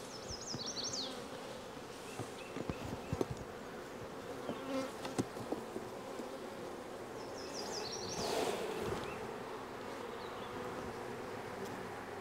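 Honey bees buzzing steadily around an open hive as frames are pulled and inspected, with a few sharp clicks and knocks of wooden frames and hive tool about two to five seconds in.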